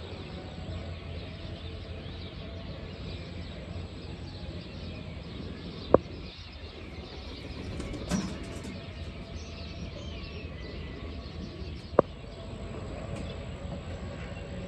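Calm outdoor morning ambience with a steady low background and faint bird chirps. Two sharp clicks about six seconds apart.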